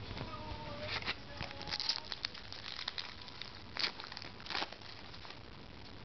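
Baseball trading cards being handled and flipped through, with short crinkling rustles and light clicks; the loudest come about two seconds and about four seconds in.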